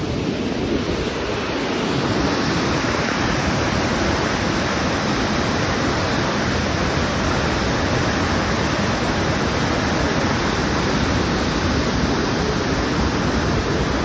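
Waterfall on a mountain river, water rushing steadily over rock ledges, growing a little louder about two seconds in.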